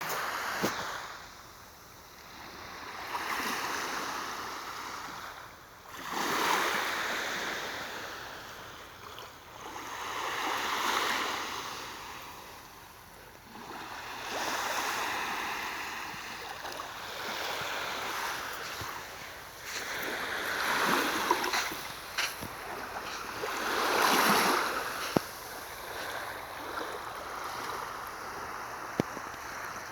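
Small sea waves washing onto the shore, the rush swelling and fading every few seconds, with a few sharp clicks in the second half.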